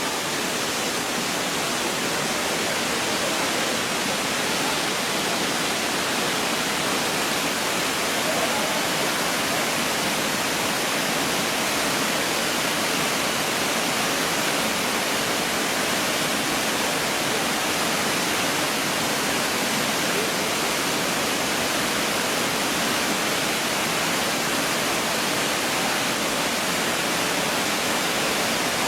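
Waterfall: a constant, even rush of falling water.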